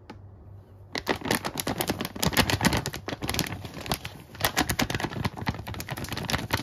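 Plastic pancake-mix packet crinkling and rustling in dense crackles as it is tipped and shaken, dry mix pouring into a stainless steel bowl; it starts about a second in.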